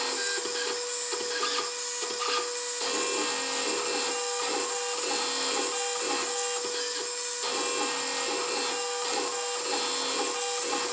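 LPKF ProtoMat 91S/VS PCB milling machine at work: its spindle running at 30,000 RPM with a steady mid-pitched hum while a 0.5 mm carbide two-flute bit cuts the copper of a circuit board. Over it comes a pulsing scrape a few times a second, with a high hiss.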